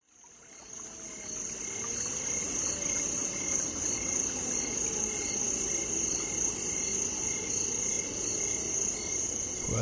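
Evening insect chorus of crickets: a steady high chirring, with a slower repeating chirp beneath it, fading in over the first second or so.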